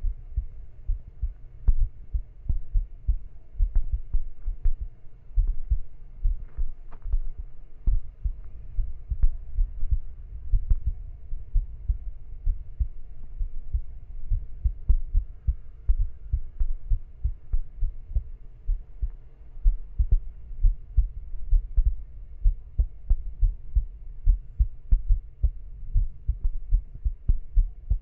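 Dull low thumps, two or three a second and irregular, with faint clicks among them.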